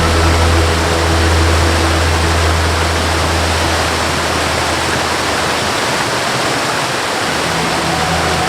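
Steady rushing waterfall noise, with a soft, low sustained musical note held underneath; the note gives way to new, higher tones near the end.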